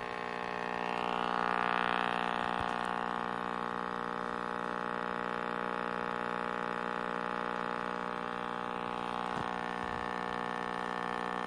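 Vintage Philips R17T530 hybrid valve TV running, its speaker giving out a steady mains hum with a rushing hiss of static over it. The hiss swells for a moment about a second in.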